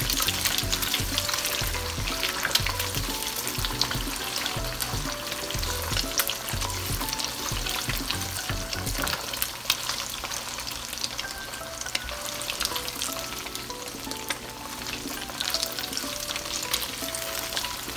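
Eggs frying in hot olive oil in a wok, sizzling steadily with a dense crackle, while a silicone spatula breaks them up and stirs them against the pan.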